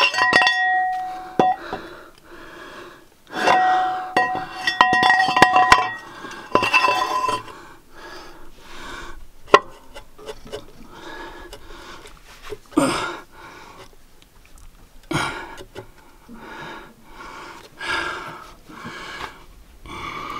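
Metal cylinder liner for a Cummins ISX diesel block clinking and ringing against the block as it is lowered into its bore. A few separate sharp knocks follow in the second half.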